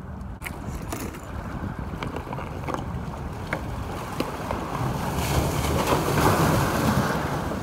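Wind buffeting the microphone and water washing at the shoreline: a steady rushing that swells louder about five seconds in, with a few faint ticks.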